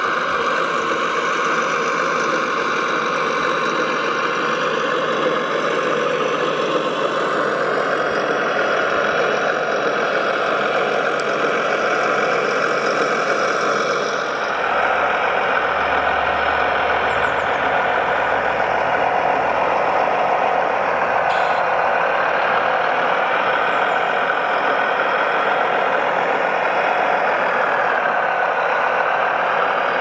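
Radio-controlled scale Volvo A45G articulated dump truck running with a steady engine sound as it works through gravel. About fourteen seconds in the sound shifts and a deeper rumble comes in.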